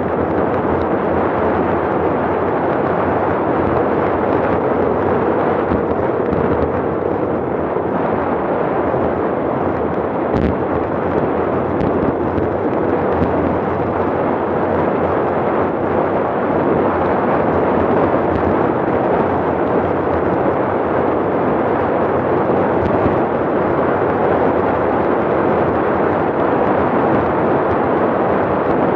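Wind buffeting the microphone of a bicycle-mounted camera on a fast road descent at about 32 to 40 mph: a loud, steady rush with no let-up. A single sharp knock comes about ten seconds in.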